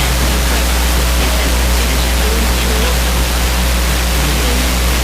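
Radio static from a weak station signal: a loud, steady hiss with a low hum, and faint wavering tones beneath it.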